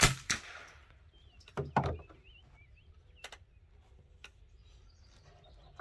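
Ruger 10/22 .22 rifle converted to open-bolt full auto, firing: two sharp cracks about a third of a second apart, then a few more close together about a second and a half in. Birds chirp in the background.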